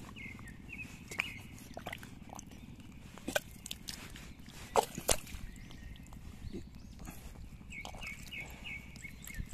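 A bare hand digging into wet paddy mud at an eel burrow, with scattered squelches and sharp clicks. The loudest come about five seconds in.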